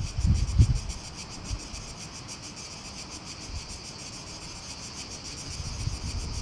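Insects chirping in a steady, high-pitched, fast-pulsing chorus. Low wind rumble buffets the microphone in the first second and again near the end.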